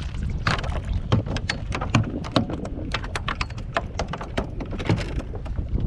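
A hooked flounder thrashing beside a kayak: a run of sharp, irregular slaps and knocks, several a second, over wind rumbling on the microphone.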